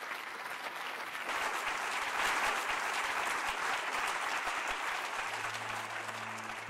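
Audience applauding, building over the first two seconds and easing a little toward the end.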